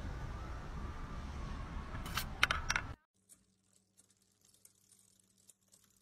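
A steel ball clicking against the metal wire track of a kinetic desk toy, with a few sharp clicks a little after two seconds in, over steady background noise. About halfway through the sound cuts off to near silence with a faint low hum.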